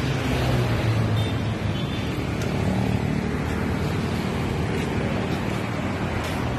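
Steady road traffic noise from cars and other vehicles passing on a multi-lane road, with a low engine hum throughout.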